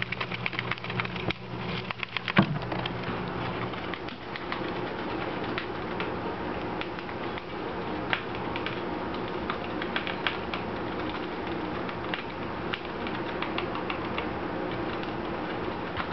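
Gerbils gnawing on a cardboard tube: quick dry clicks and crunches, thick in the first couple of seconds and then scattered, over a steady background noise.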